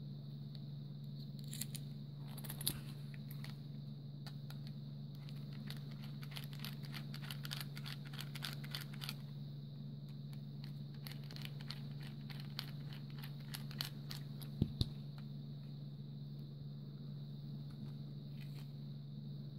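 Small clicks, scratches and scrapes of hands handling a plastic butane torch lighter and working a small Phillips screwdriver in its screws, with two sharper knocks close together about fifteen seconds in. A steady low hum and a faint high tone run underneath.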